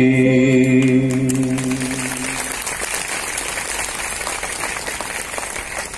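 A singer holds the last note of a recited song for about two and a half seconds. Applause starts about a second in and carries on, outlasting the note.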